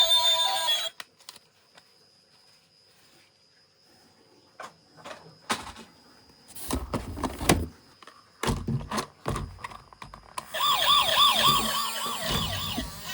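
Plastic toy vehicles handled with scattered clicks and knocks, then a toy's battery-powered electronic siren starts about ten seconds in, a fast warble of about four to five rises a second.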